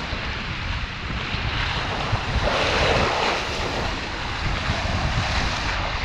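Water rushing and splashing, swelling louder about halfway through, with wind buffeting the microphone in a low rumble.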